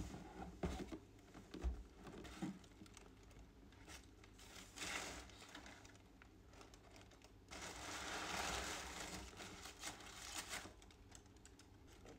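Black wrapping paper crinkling and rustling as a sneaker is unwrapped and lifted from its shoebox, in a short burst about five seconds in and a longer stretch a little past halfway. A few light knocks near the start.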